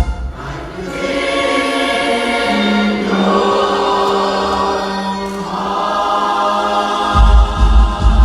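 A choir singing long held chords, coming in about a second in, with a deep low rumble returning near the end.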